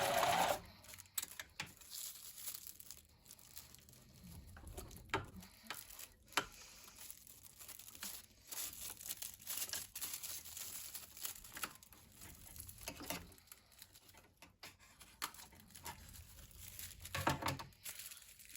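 A domestic sewing machine stops about half a second in, followed by scattered soft rustles and small clicks of fabric and thread being handled at the machine, with a louder rustle near the end.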